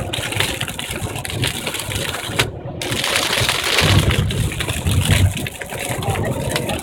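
Road noise inside a moving car on the highway: a steady rush of tyres and wind over a low rumble, swelling louder about four to five seconds in.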